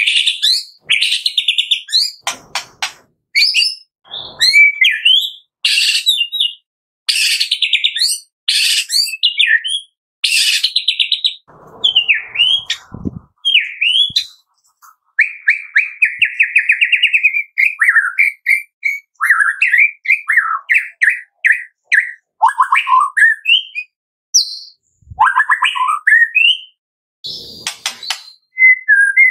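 White-rumped shama singing a loud, varied song of short phrases: sliding whistles, harsh notes and rapid trills, with brief gaps between phrases and one long, fast trill about halfway through. It is the rapid-fire 'tembakan' song used as a lure to set other shamas singing.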